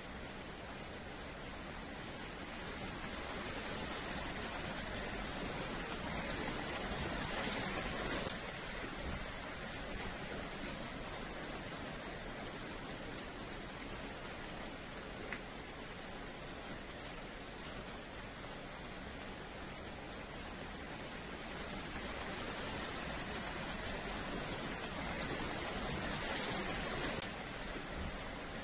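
Steady rain falling on wet paving. It swells twice into a heavier downpour, once a quarter of the way in and again near the end, each time dropping back suddenly.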